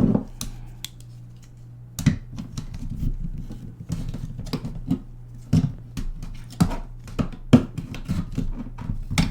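Irregular plastic clicks, creaks and scrapes as a smoke detector's circuit board is pried out of its plastic housing, with a few sharper snaps among them, over a low steady hum.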